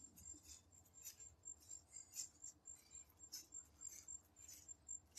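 Near silence: a faint, high, evenly pulsing chirp of insects, with soft scattered rustles.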